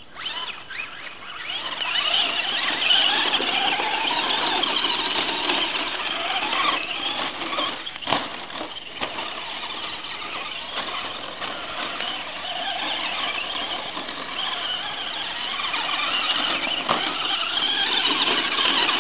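Brushless electric motors of two Traxxas Slash RC short-course trucks whining as they race, the pitch rising and falling with the throttle. There is one sharp knock about eight seconds in.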